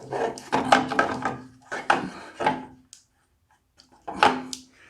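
Hard plastic scraping, rubbing and knocking in four short bursts as a snowblower's headlight lens assembly is pushed and worked into its plastic housing.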